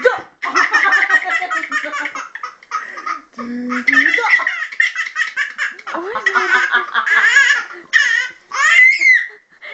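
A baby belly-laughing hard in repeated fits, each a quick run of breathy ha-ha pulses, with short breaks for breath between fits.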